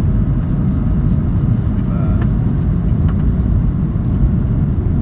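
Steady low rumble of a landing aeroplane's engines.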